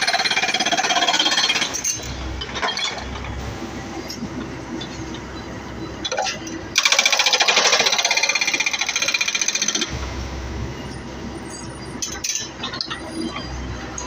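Excavator-mounted hydraulic breaker hammering in rapid strokes, stopping about two seconds in and hammering again for about three seconds in the middle; between the bursts the excavator's engine runs with a low rumble and scattered clinks.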